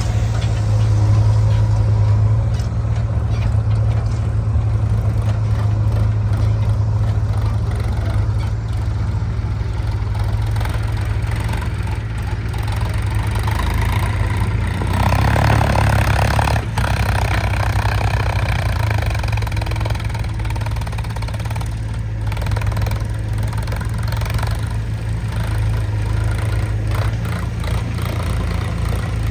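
Sonalika 42 DI RX tractor's diesel engine running steadily as it pulls a loaded trolley of soil, growing louder for a couple of seconds about halfway through.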